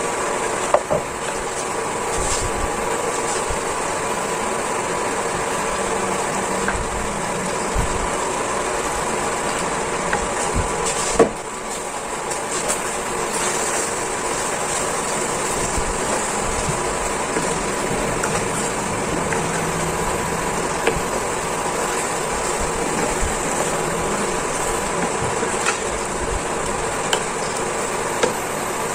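Steady humming hiss in the kitchen, with a sharp knock about a second in and another about eleven seconds in as a wooden spatula stirs penne into a creamy sauce in a non-stick frying pan.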